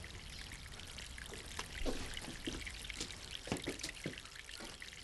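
Water trickling from a leaking bathroom pipe, with irregular drips splashing.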